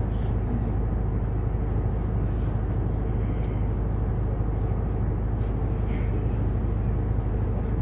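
Tour boat's engine running steadily, a constant low hum.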